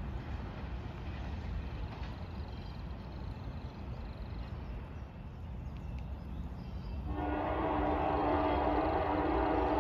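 CSX freight locomotive approaching with a low rumble, then its air horn comes in about seven seconds in with a loud, sustained blast.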